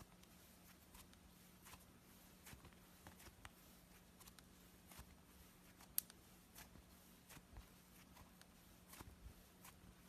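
Slime being worked by hand, very faint: scattered small clicks and pops at irregular intervals, with one sharper click about six seconds in, over a faint steady low hum.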